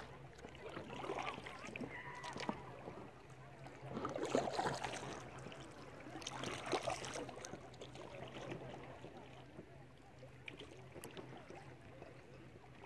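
Water splashing and sloshing around a canoe as it is paddled, in irregular swells, loudest about four seconds in and again near seven seconds.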